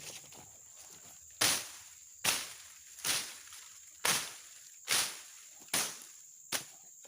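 Footsteps brushing through vegetation: a run of short rustling swishes at a steady walking pace, about one every 0.8 s, with a steady high insect trill behind.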